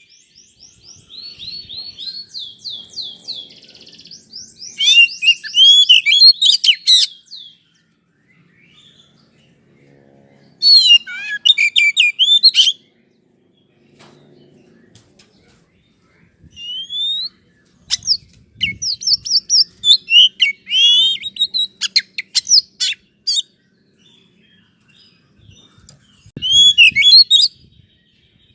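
Oriental magpie-robin (kacer) singing: loud phrases of quick, varied whistles and chirps, each lasting one to five seconds, with short pauses between them.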